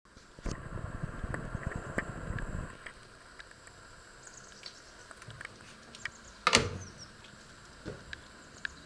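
Microwave oven door shut with a single sharp bang about six and a half seconds in, followed by a smaller knock. Before it, a couple of seconds of low rumbling and rattling near the start.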